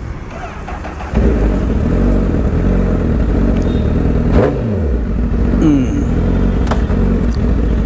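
Honda CBR1000RR Fireblade's inline-four engine running at idle, coming in abruptly and loudly about a second in and then holding a steady low note, with a brief change in pitch near the middle.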